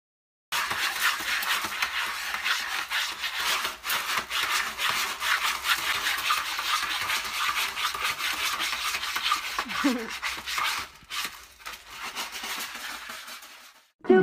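A cat digging in a litter tray of pellet litter: a continuous rough scratching and rustling of the pellets, full of small clicks. It grows quieter after about eleven seconds.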